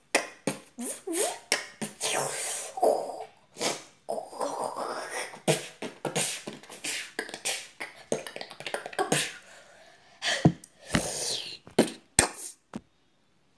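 A boy beatboxing: quick mouth-made drum hits and clicks mixed with short voiced hums. It stops abruptly about a second before the end.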